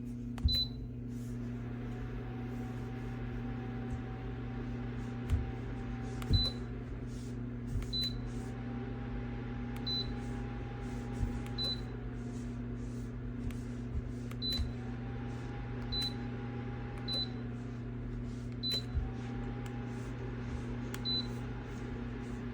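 Ayovoch ceramic tower space heater running with a steady fan hum, beeping about a dozen times as its mode and setting buttons are pressed, each short high beep with a soft click. A faint whine rises, holds for a few seconds and falls away, four times over.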